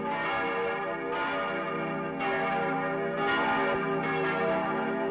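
Church bells pealing, a new stroke about once a second, each ringing on and overlapping the next.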